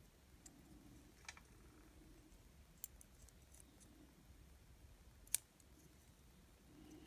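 Quiet room with a few small sharp plastic clicks as an N-scale locomotive truck is handled and pushed into its chassis; the sharpest click comes about five seconds in.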